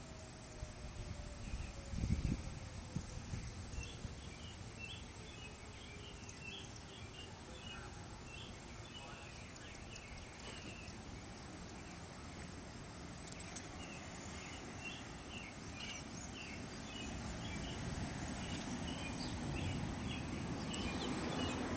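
Distant outdoor tornado warning siren, faint, winding slowly down in pitch over the first several seconds. High chirps come in quick clusters throughout, with a short low thump about two seconds in and a low rushing noise growing toward the end.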